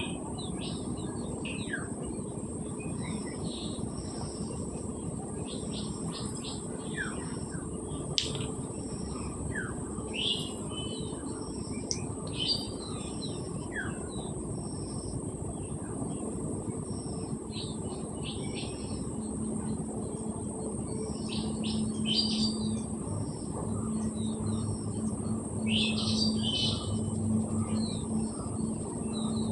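Birds chirping throughout in short high notes, with a few quick falling whistles.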